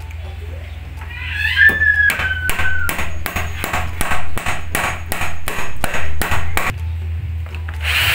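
Hammer tapping a wooden stair rail into its notch in the newel post, an even run of about fifteen blows at roughly three a second. A person whistles a short falling note over the first blows.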